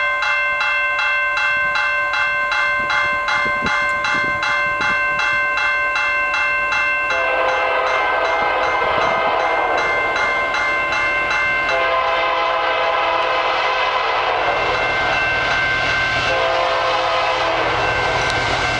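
Air horn of a Canadian Pacific diesel freight locomotive sounding a long chord, its pitch dropping about seven seconds in as the locomotive passes. Over the first part a bell rings rapidly, about three strokes a second. Later the rolling rumble and rattle of the train's wheels and cars grows under the horn.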